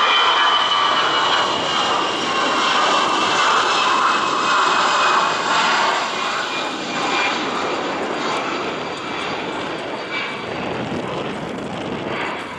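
Airbus A320 jet engines at climb thrust as the airliner climbs out after takeoff: a steady jet roar with a high whine that slowly falls in pitch and fades gently as the aircraft moves away.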